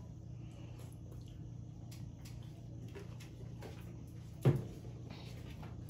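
Faint eating sounds of boiled crawfish being peeled and chewed: scattered small clicks and crackles over a steady low hum, with one short, louder thump about four and a half seconds in.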